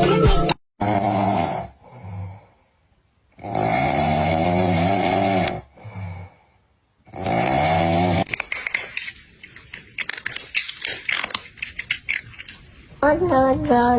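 Three long, drawn-out groaning calls, about one to two seconds each, with a slight waver in pitch, followed by several seconds of crackly rustling.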